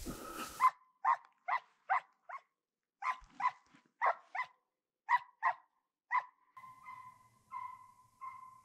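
Drever hound baying on a hare's track, giving tongue while it drives the hare: a run of short barks, two or three a second, turning about two-thirds in into longer, drawn-out bays.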